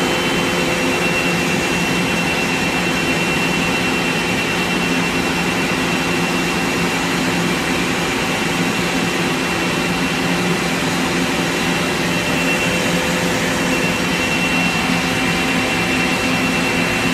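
Steady drone of the running laser cutting installation's machinery, an even whirring rush with several steady low hum tones and a thin high whine above them.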